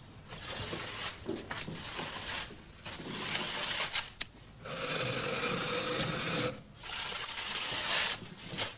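A child crawling on a tiled kitchen floor: knees, hands and clothing rub and scrape against the floor in about five long noisy strokes with short pauses between them.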